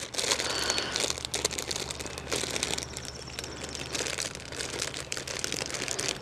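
Clear plastic bags crinkling and crackling steadily as bagged plastic model-kit runners are handled and turned over.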